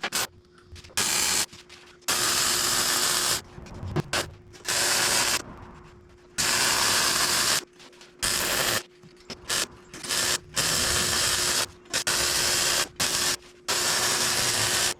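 Metalwork on a steel truck bumper: a harsh hissing, crackling tool starts and stops in about a dozen short bursts, some under a second and some about two seconds long, over a steady low hum.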